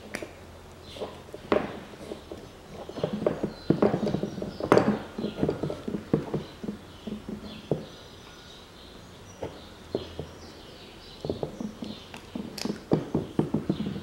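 Irregular clicks and knocks of a steel brake caliper bracket and its guide pin being handled on a plastic table, coming in clusters, loudest a little past the middle and busy again near the end.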